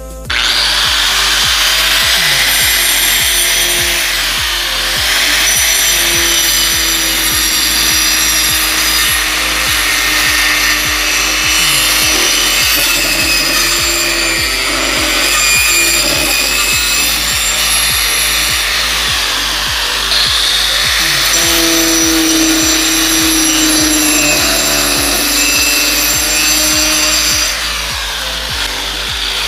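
DeWalt angle grinder with a toothed saw blade, running at full speed and cutting through wooden formwork boards. A steady high motor whine sits over the rough noise of the blade in the wood. It eases near the end.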